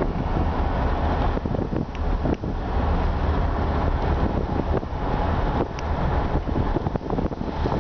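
Wind buffeting the microphone over the steady rumble of a moving vehicle, with a few brief knocks.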